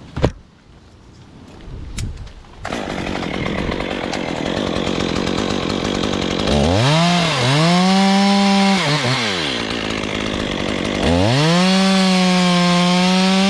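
Chainsaw revved up to full throttle twice: first for about two seconds around the middle, then again near the end, each time holding high and then dropping back, as when cutting wood. A sharp click comes right at the start.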